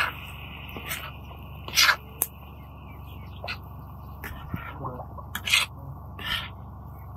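Slotted metal skimmer scraping and knocking against a large shallow metal pan while stirring chopped vegetables, a series of short scrapes with the loudest about two seconds in and again about five and a half seconds in.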